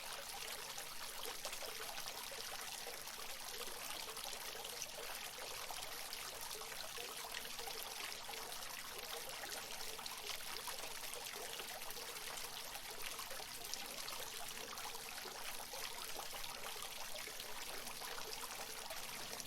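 Water from a natural fountain splashing and trickling steadily.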